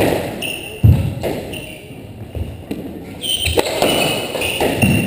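Doubles squash rally: the ball cracking off racquet strings and the court walls and floor, a series of sharp impacts roughly every second with a short echo of the enclosed court. The hardest hit comes about a second in.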